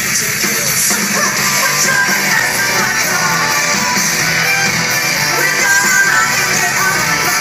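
A rock band playing live through a large open-air festival PA, with electric guitars to the fore. The loud, dense music runs without a break.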